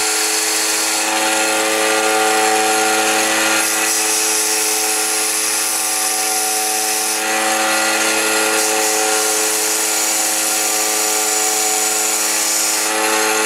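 Delta bench belt sander running, its belt grinding the ends of metal pins flush with a sword handle. A steady motor hum lies under a loud grinding hiss that swells twice for a few seconds as the work is pressed to the belt.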